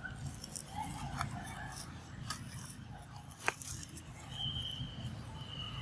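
Macaques moving over dry leaf litter: scattered soft crackles and rustles of dead leaves, with one sharp click about three and a half seconds in. A thin, steady high whistle sets in near the end.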